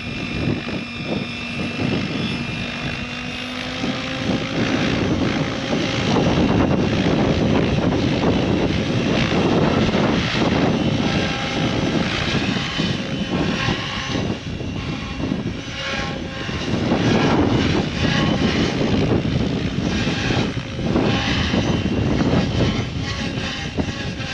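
Goosky RS7 electric RC helicopter hovering on its maiden flight with the canopy off: its rotors and motor make a steady whirr that swells and eases every few seconds. Wind can be heard on the microphone.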